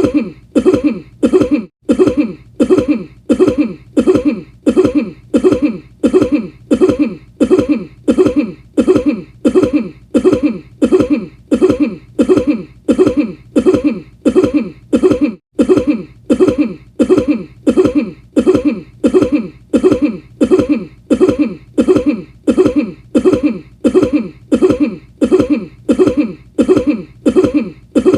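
A cough looped over and over, the same cough repeating at an even pace of about three every two seconds, with two tiny breaks where it restarts.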